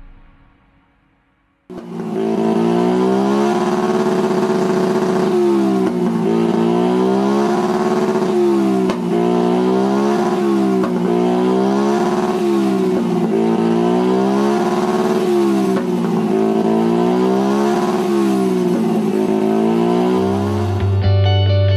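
Modified Honda Ruckus scooter engine revved over and over with its rear wheel lifted off the ground, the pitch climbing and falling back about every second and a half to two seconds, starting about two seconds in.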